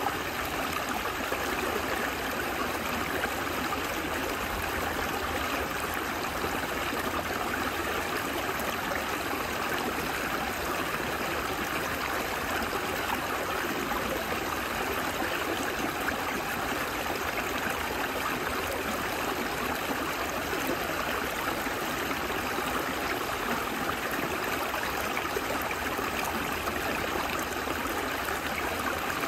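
Small partly frozen stream running steadily over rocks and between shelves of ice: a constant babbling rush of water with no pauses.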